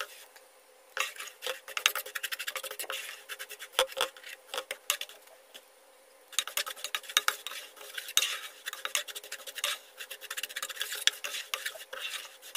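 A utensil stirring and scraping ground kataifi dough in melted butter in a frying pan, in quick rapid strokes with a brief pause near the start and another about halfway. The dough is being toasted until it turns evenly golden.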